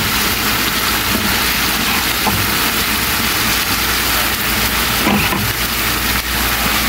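Steady hiss of chicken, potatoes and carrots frying in a pan, over a steady low hum.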